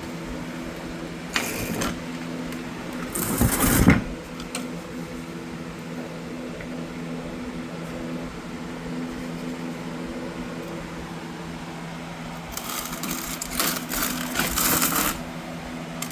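Notched trowel scraping and spreading thinset mortar across the floor in several strokes: one about a second in, a longer one around three to four seconds in, and a run of strokes near the end. A steady low hum lies under it.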